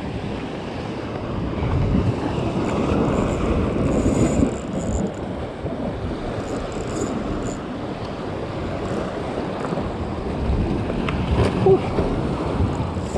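Wind buffeting the microphone over waves washing against shoreline rocks, a steady noisy wash.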